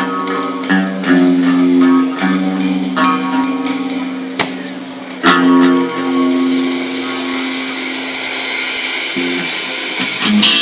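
Rock music on guitar: a riff of short, repeated low notes, then a chord struck about five seconds in and left to ring under a steady high shimmer.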